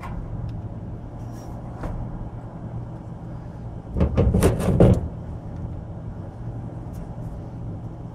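Hands working electrical wires and a wire connector: a short cluster of rustling and clicking about four seconds in, over a steady low hum.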